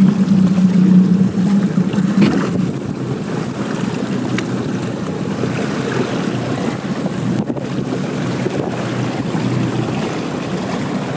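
Boat engine running under way, a steady low hum with wind buffeting the microphone and water rushing past. The hum is strongest in the first couple of seconds.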